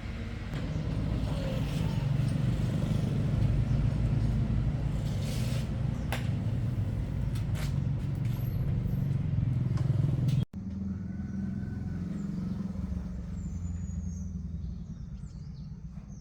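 An engine running steadily with a low hum and a few sharp clicks. The sound cuts out abruptly for an instant about ten and a half seconds in, then goes on a little quieter.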